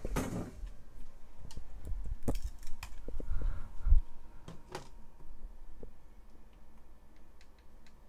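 Handling noises from die-cast toy cars and a plastic Hot Wheels drag track: scattered small clicks and knocks as the cars are set at the starting gate, with a heavier thump about four seconds in.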